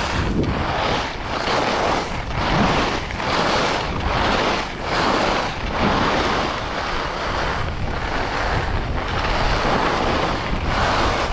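Wind rushing over the microphone at skiing speed, mixed with Rossignol Hero slalom skis hissing and scraping over groomed packed-powder corduroy. The noise rises and falls about once a second with the turns.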